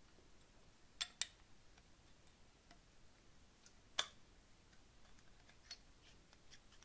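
A few faint metal-on-metal clicks as a machined clamp collar is handled and slid along its shaft: two light ones about a second in and a sharper one about four seconds in.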